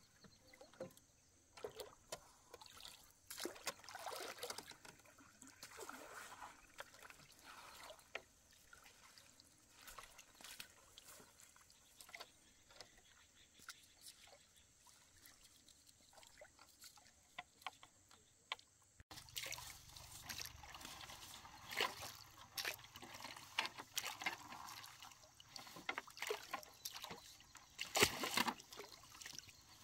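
Water splashing and trickling in irregular bursts, busier in the last third, with one louder splash near the end.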